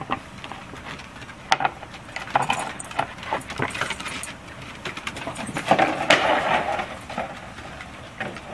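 Shetland sheepdogs' paws and claws clicking and scuffling on wooden deck boards as they run and play, in irregular taps, with a louder rough scuffle about six seconds in.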